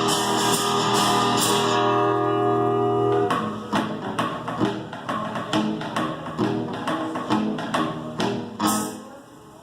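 Acoustic guitar played live in an unplugged rock song. Strummed chords ring out for about three seconds, then give way to sharp, rhythmic picked notes and taps.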